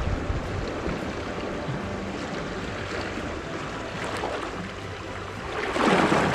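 Sea water washing over shoreline rocks, with a louder wave surging in near the end.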